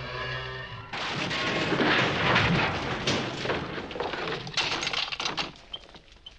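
Action-film sound effects: a held tone breaks off about a second in into a dense run of cracks, crashes and impacts, like gunfire and smashing, that dies away near the end.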